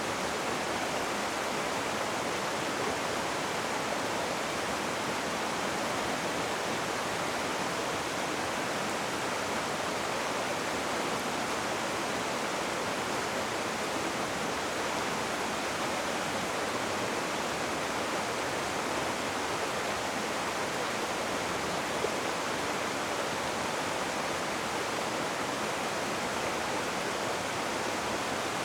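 Rushing river water: a steady, even roar of fast-flowing water with no change throughout.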